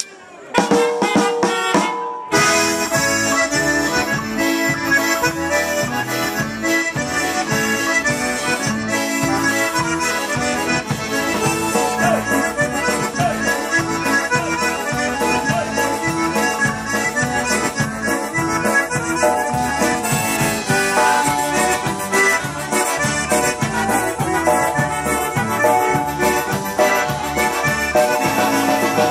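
Polka band playing live, led by a piano accordion and a button concertina over drums and trumpets, with a steady beat. The music kicks in about half a second in, after a brief lull.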